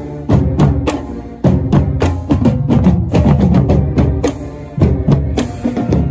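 Marching drumline playing a fast cadence: snare drums, tenor drums and tuned marching bass drums struck in a driving rhythm, with crash cymbals.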